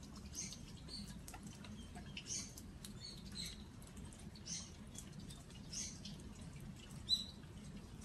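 Autumn rain dripping and pattering on onggi earthenware storage jars, with short high squeaky bird calls repeating about once a second and one louder, sharper note near the end.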